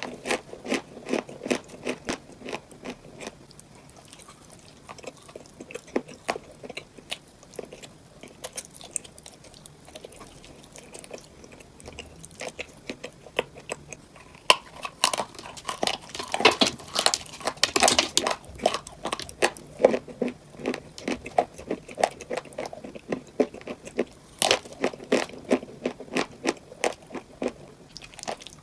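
Close-up crunching as someone bites into and chews cupcakes filled with crunchy items, with quick runs of crisp crackles that come in waves.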